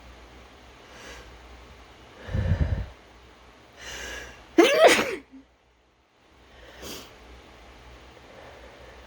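A person sneezing once, loudly, a little past halfway, after a couple of heavy in-breaths as the sneeze builds. One short breath follows about two seconds later.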